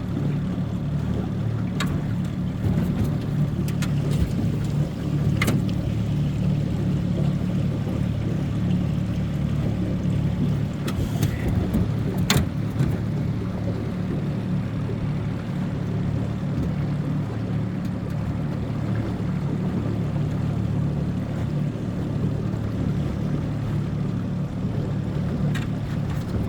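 Boat motor running steadily at an even pitch, with a few sharp clicks or knocks now and then.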